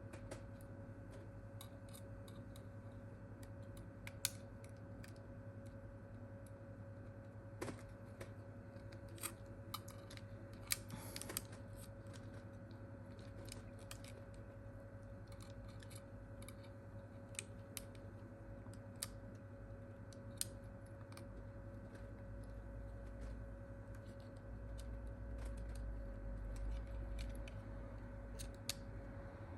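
Scattered light clicks and taps of small tools and phone parts being handled, over a steady electrical hum. A low rumble comes in about two-thirds of the way through.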